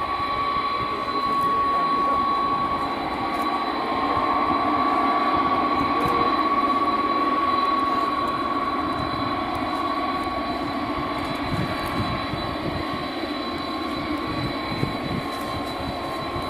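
McDonnell Douglas KDC-10 tanker's three General Electric CF6 turbofans running at low taxi power: a steady jet rumble and hiss with a high whine that drops slightly in pitch about two-thirds of the way in.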